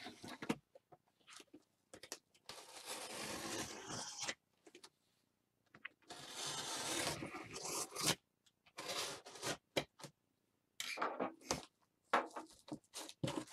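Utility knife slitting packing tape along a cardboard box in two long strokes a few seconds apart, followed by a run of short cardboard scuffs and knocks as the box flaps are pulled open.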